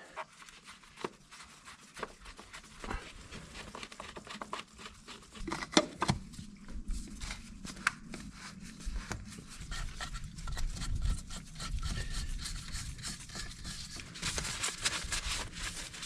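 Hands fitting a tractor's diesel filter housing: scattered clicks and knocks of plastic and metal parts being handled and seated, with a low rumble underneath. Near the end comes a rubbing hiss as the area is wiped with a paper towel.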